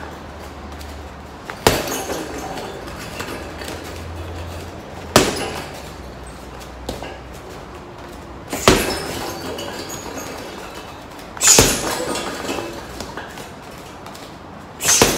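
Boxing gloves punching a hanging heavy bag in a body-straight-to-overhand combination. Five sharp hits land about three and a half seconds apart.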